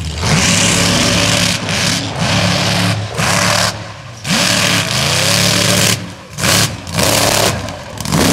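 Mega truck engines racing hard, the throttle opened and chopped again and again. The engine note rises and falls, and the loud roar drops out briefly several times.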